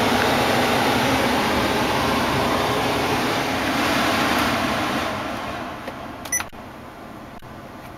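Cabin climate-control blower fan rushing steadily, then fading over about a second and a half, starting about five seconds in, as its speed is turned down. A short click comes as it settles.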